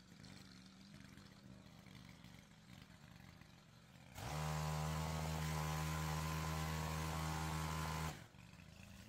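Powered pole saw running at a steady, unchanging speed, starting suddenly about four seconds in and cutting off abruptly about four seconds later.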